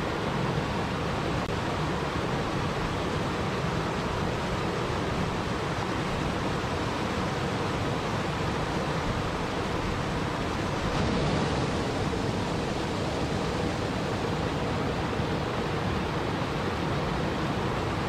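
Small waterfall cascading over rocks: a steady, even rush of splashing water that swells slightly for a moment a little past the middle.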